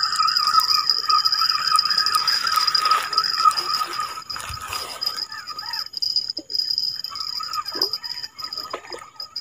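Spinning reel being cranked steadily as a hooked fish is reeled in, under a steady high-pitched insect drone whose lower part drops out briefly about six seconds in.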